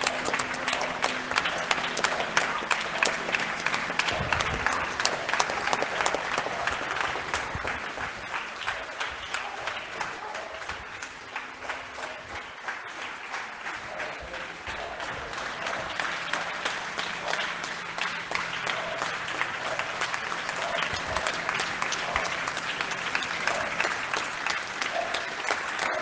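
A large audience applauding: dense, many-handed clapping that eases off around the middle and then swells again.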